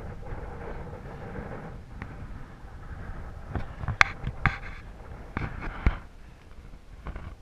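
Wind buffeting the microphone with a steady low rumble, and several sharp knocks about four to six seconds in.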